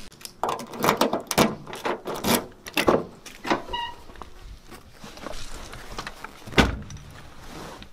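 Handling noise of a door and keys: a quick run of clicks and rattles, a brief tone about four seconds in, and one loud thump a little before the end.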